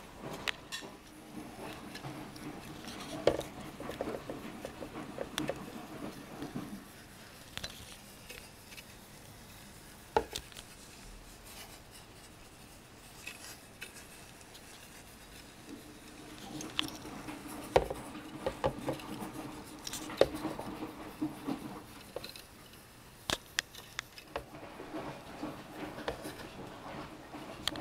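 Scattered light clicks and taps from hands and handheld camera moving around a small tin pop-pop steam boat in a plastic bowl of water, over a low hum from a washing machine running close by. The boat is a coil-type pop-pop boat without a diaphragm, so it makes little sound of its own.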